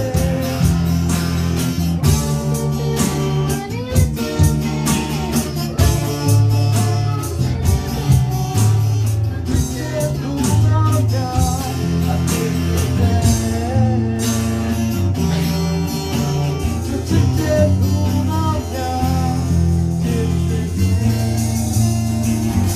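Live band music: acoustic guitar with a bass line and drums, and a man and a woman singing.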